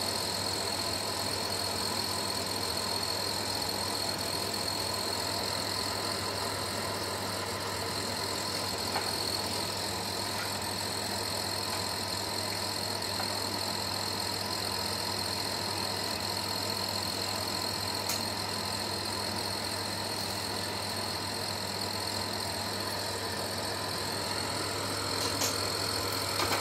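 Steady hiss of oil sizzling as vadas deep-fry in a steel kadai, over a constant low mechanical hum. There are a few light clicks of the steel slotted spoon against the pan.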